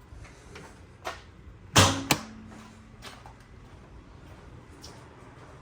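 Toyota 4Runner's hood latch popping open: a sharp thunk about two seconds in, followed a moment later by a smaller knock, with a faint click shortly before.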